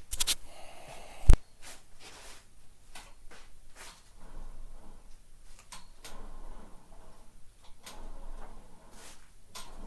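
Workshop handling noises: scattered small clicks and knocks, with one sharp, loud knock a little over a second in.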